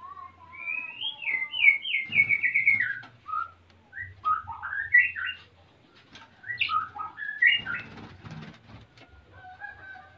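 Male white-rumped shama singing in breeding condition: a loud, varied string of clear whistled phrases, with a quick falling run of repeated notes about two seconds in and a short pause about halfway.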